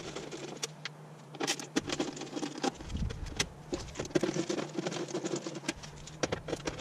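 Screwdriver turning out the small screws of a floor access panel in a light aircraft's cabin: irregular light clicks and scrapes of metal on metal as the screws are backed out and handled.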